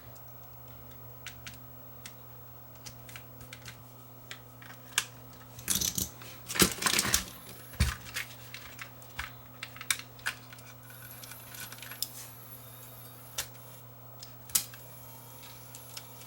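Small hard clicks and clatter from handling the parts of a Sony Hi8 camcorder's tape mechanism during a rebuild, with a denser burst about six to seven seconds in and a single knock just after. A steady low electrical hum runs underneath.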